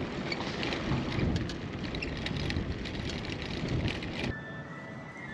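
Bicycle rolling over rough, bumpy wall paving, rattling and clicking over the bumps, with wind buffeting a handheld camera's microphone. About four seconds in, the rattle and rumble cut off abruptly, leaving a quieter background with faint steady high tones.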